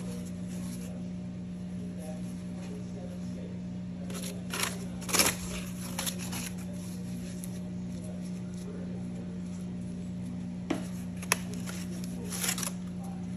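Aluminium foil crinkling and rustling in short bursts as hands lift and squeeze soft cooked chapatis in a foil-lined bowl. The loudest rustle is about five seconds in, with a sharp tick about eleven seconds in, all over a steady low hum.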